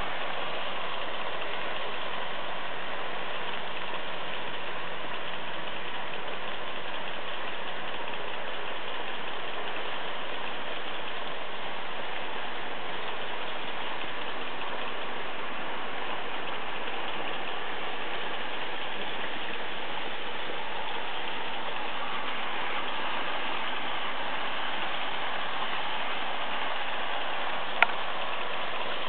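H0-scale Märklin model trains running around the layout: a steady, unchanging rattle and whir of wheels on the track and small electric motors. A single sharp click near the end.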